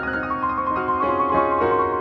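Solo piano music in D-flat major played on a Yamaha Clavinova digital piano. A high note is held from about half a second in while lower notes change beneath it roughly every half second.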